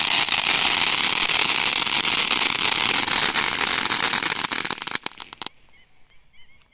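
Diwali 'sundrop' firework spraying sparks with a loud, steady hiss and crackle, which cuts off about five and a half seconds in.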